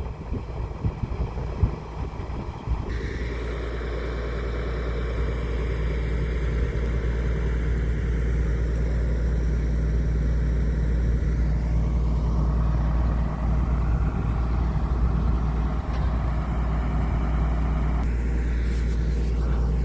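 Club Car utility vehicle being driven at a steady speed, its motor giving a low, even drone, after a few seconds of irregular bumps and knocks.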